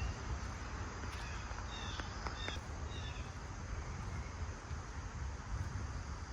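Woodland ambience: a steady low rumble and hiss, with about three short, high bird chirps around two to three seconds in.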